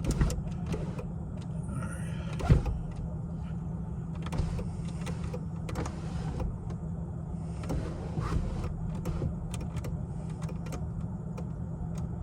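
2005 Mercedes CL600's twin-turbo V12 idling steadily, running on all twelve cylinders now that the faulty ignition voltage transformer has been replaced. Scattered light clicks, with a louder knock about two and a half seconds in.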